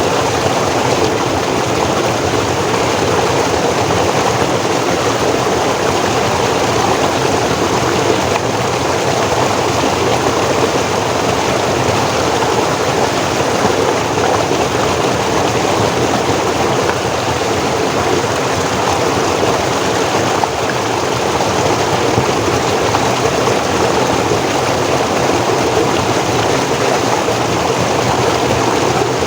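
Forest stream flowing over rocks: a steady, even rush of running water.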